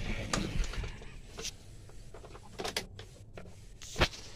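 Scattered knocks, clicks and rustling of someone moving about in a truck cab, with one sharp click near the end. The engine is not running.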